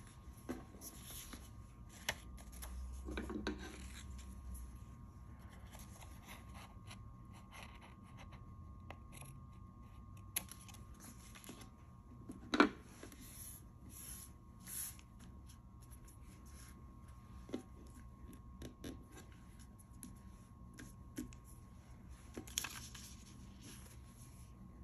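Paper being handled, folded and pressed flat on a wooden tabletop: soft rustles and scrapes with scattered light taps, and one sharp click about halfway through.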